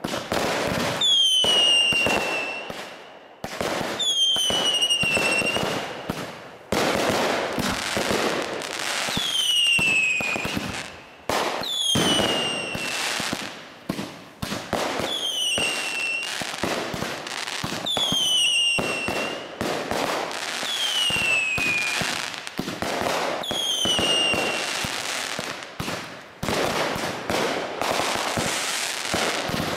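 Aerial fireworks going off in a rapid string of bangs and crackles. About every two to three seconds there is a short falling whistle, eight in all.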